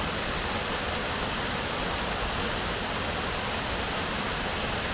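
Waterfall on Dingmans Creek, a steady, even rush of falling water.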